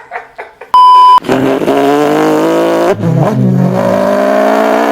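A short, loud censor bleep under a second in, then a man imitating a car engine with his mouth: a buzzing engine note that holds and climbs, breaks and dips about three seconds in, then rises again.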